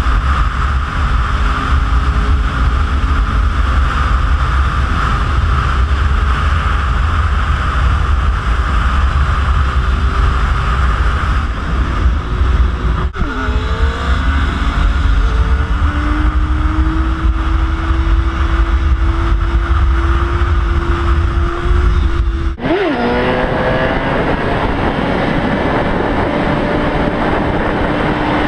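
Heavy wind buffeting on a helmet camera at freeway speed, with a sportbike's inline-four engine running underneath, its pitch climbing slowly in long rises. It breaks off abruptly twice, about 13 and 22 seconds in; after the second break the deep wind rumble is mostly gone and the engine note is clearer.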